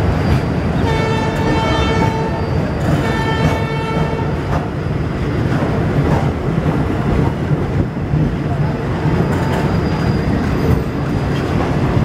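A moving train's steady rumble of wheels on the rails, with two blasts of a locomotive horn, about a second and three seconds in.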